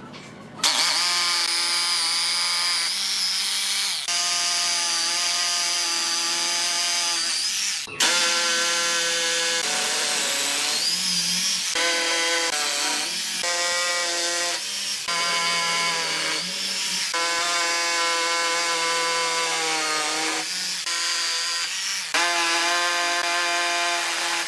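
Corded electric hammer drill running and boring into a masonry wall, a steady whine whose pitch shifts every few seconds between holes.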